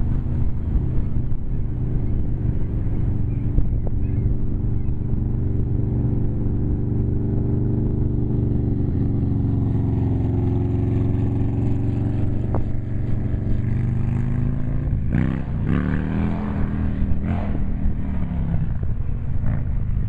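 Wind buffeting the microphone with a steady low rumble, while a motor vehicle's engine drones through the middle of the stretch, its pitch falling as it goes by.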